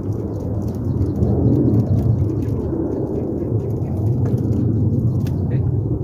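Wind buffeting the microphone outdoors: a steady low rumble with faint crackles.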